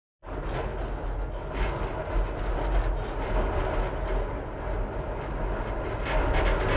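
A steady, heavy low rumble with dense noise over it, typical of a vehicle-interior or transport ambience, cutting in abruptly just after the start, with a run of faint clicks near the end.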